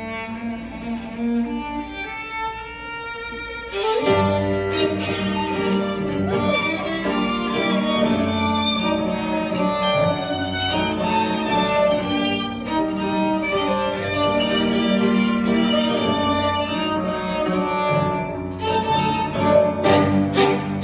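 Live quartet of two violins, cello and grand piano playing. It opens on a quieter passage of high notes, the full ensemble comes in about four seconds in, and sharp accented chords strike near the end.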